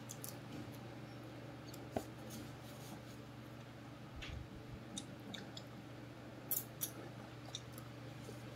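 Faint, irregular clicks and crackles of longans being pulled off their twigs and their thin, brittle shells cracked and peeled by hand, over a steady low hum.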